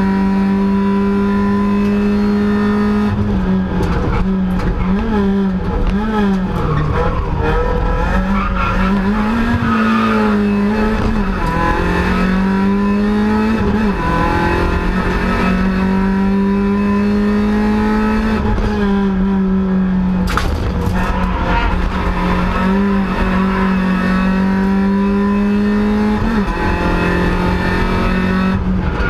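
VW Lupo hillclimb race car's engine heard from inside the cabin, running hard under load. The engine note is held high, then dips and climbs back up several times as the car shifts and slows for bends.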